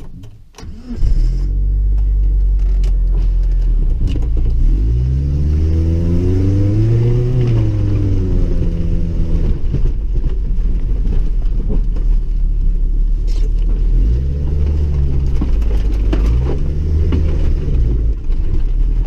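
1998 Chevrolet Tracker's engine heard from inside the cabin while driving, its pitch rising and falling as it revs up and eases off: once in a long sweep early on the middle, then twice more in quicker succession near the end.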